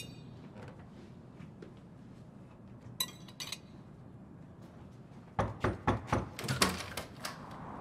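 Quiet room tone broken by two clinks of tableware about three seconds in, then a quick run of clicks and knocks as a front door's lock and handle are worked open near the end.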